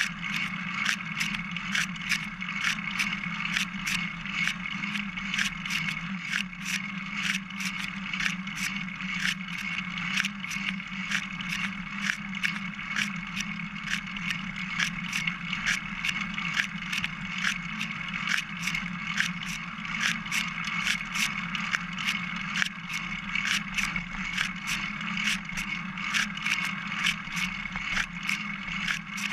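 Singlespeed Specialized bicycle ridden along a trail, heard from a camera mounted on its top tube: a steady rolling noise from the tyres, with frequent small irregular clicks and rattles from the bike.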